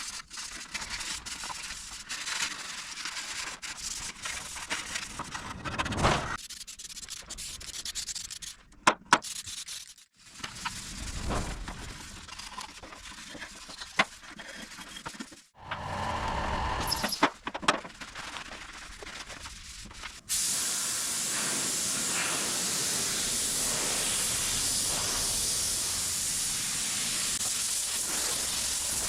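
Irregular clicks and handling noises, then about two-thirds of the way in, a steady hiss of primer being sprayed, which continues without a break.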